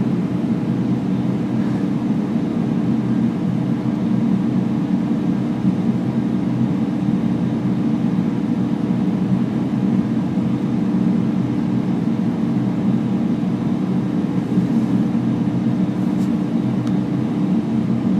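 Steady, unchanging low hum of running equipment, with a few faint steady tones above it.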